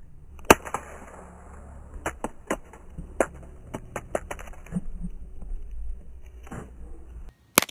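A dart striking an iPhone 5's back glass: a sharp hit about half a second in, then a run of lighter clicks and taps, and another sharp hit near the end.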